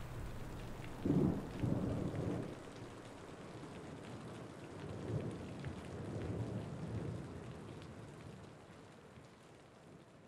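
Steady rain with rolls of thunder, one about a second in and a longer one around five to seven seconds, the whole fading out toward the end.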